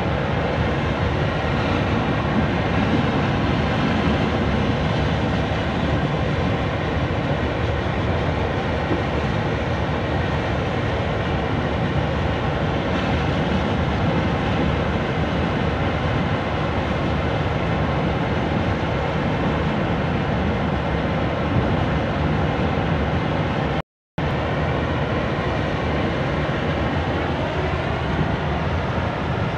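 Steady, loud machinery rumble of a sand-unloading ship's conveyor boom running and pouring sand onto the pile, with a faint steady hum in it. The sound cuts out for an instant about three-quarters of the way through.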